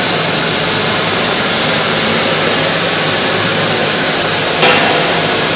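Yanmar ViO30 mini excavator's diesel engine running steadily, with a strong hiss over a low hum, slightly brightening about four and a half seconds in.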